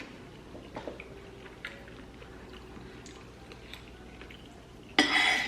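Close-up mouth sounds of someone chewing braised chicken and rice, with small wet clicks and smacks. A brief, louder clatter comes near the end.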